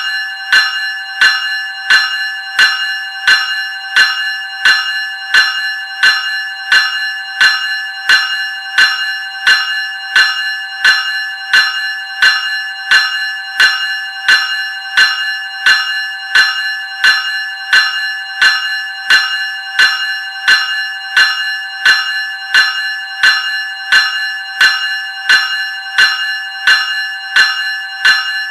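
Graham Electric Bell 373 Series ringing in a steady, even rhythm of about three strokes every two seconds. Each stroke's ring carries over into the next.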